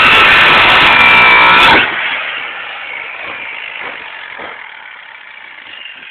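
Angle grinder with an abrasive cutting disc running at full speed, cutting through a car's steel coil spring. About two seconds in the sound drops sharply, then fades away over the next few seconds as the grinder winds down.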